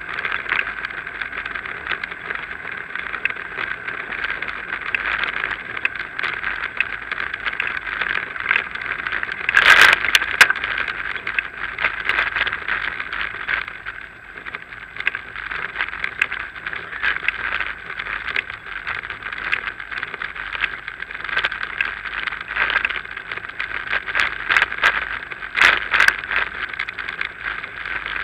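Bicycle riding noise on a paved path as picked up by an action camera riding on the bike or rider: a steady hiss with frequent small rattles and clicks from the bike over the surface. There is one louder jolt about ten seconds in and a run of sharper rattles near the end.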